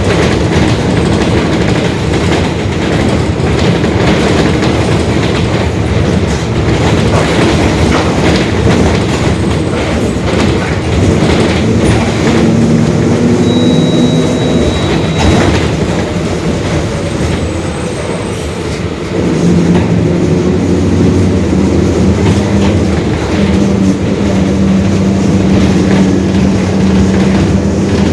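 Interior of a Mercedes-Benz OF-1721 Bluetec 5 city bus on the move: engine and drivetrain running under a constant rattle from the bodywork. A steady droning tone comes and goes from the differential, which is growling.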